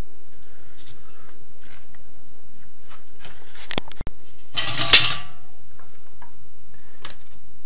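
Metal tools and pieces being handled: a few light clicks, then about five seconds in a short metallic clatter.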